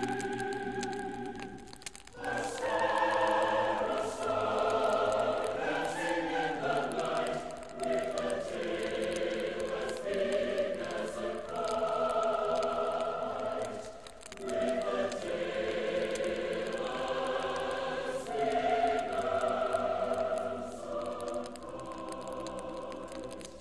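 A choir singing slow, sustained chords in long phrases, with short breaks between phrases about two seconds in and again around the middle.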